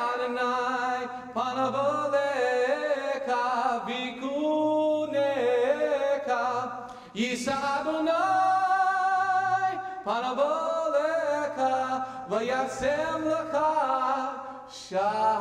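Slow melodic singing in long, held phrases, with short breaks between them.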